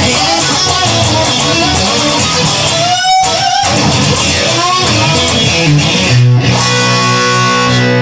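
A song with electric guitar playing; about six seconds in, a chord is struck and held, ringing on.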